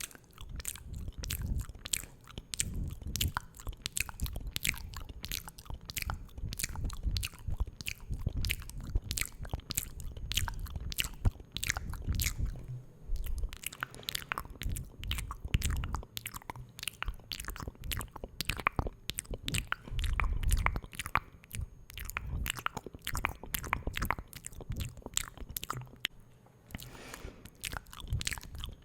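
Close-miked ASMR mouth sounds: a dense run of sharp, wet clicks, several a second, with soft low thuds beneath, easing briefly near the end.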